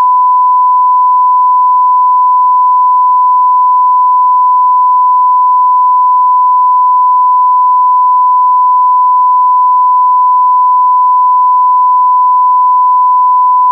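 TV test tone: a single loud, steady beep held at one unchanging pitch, unbroken throughout.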